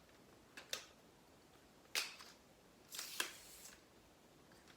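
A folding tripod painting easel being handled, giving a few sharp clicks and knocks: one just under a second in, a louder one about two seconds in, and a quick double knock about three seconds in.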